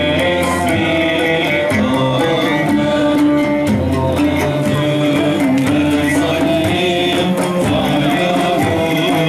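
Electric violin playing a Turkish ilahi (hymn) melody, accompanied by keyboard and oud over a steady percussion beat.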